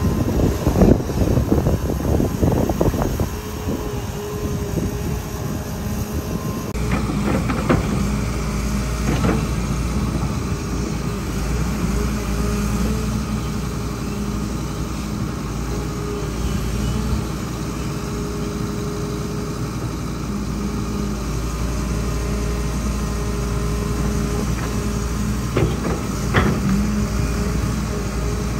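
Excavator's diesel engine running steadily, with clattering knocks over the first few seconds and twice more near the end.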